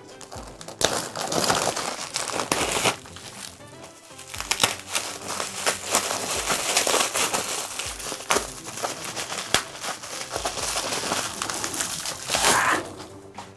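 Plastic bag and bubble wrap crinkling and rustling as hands unwrap a packed beer can, with many small sharp crackles.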